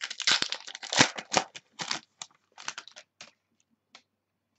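A pack of football trading cards being torn open by hand: its wrapper crinkles and tears in quick, dense crackles for about two seconds, then a few light ticks as the cards are handled.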